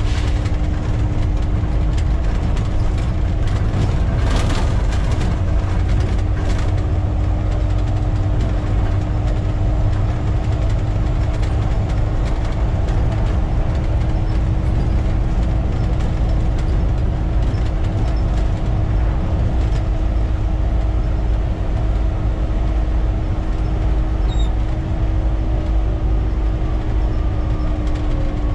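Volvo B7TL double-decker bus's six-cylinder diesel and drivetrain running loud and steady under way, heard from the driver's cab, with a steady whine holding one pitch that drops a little near the end. A few short rattles and knocks from the body come a few seconds in.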